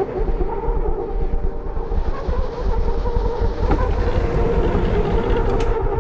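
A heavy vehicle running steadily: a low, fluttering rumble with a steady hum over it.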